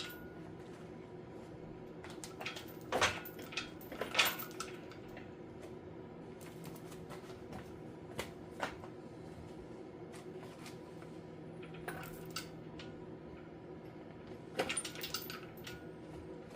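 Scattered metallic clinks and knocks of tractor parts and tools being handled, a few at a time with pauses between, over a steady low hum.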